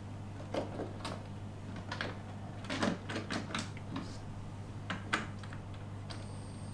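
Small plastic clicks and taps from an N gauge model multiple unit's cars being handled and settled onto the track. Near the end a faint steady high whine starts as the unit picks up power from the track.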